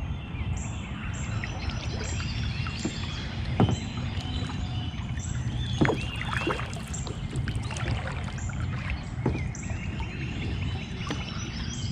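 Kayak paddling, with water sloshing against the hull over a steady low rumble. Two sharp knocks come about three and a half and six seconds in. Birds chirp in the background, one with a short high note repeated about twice a second.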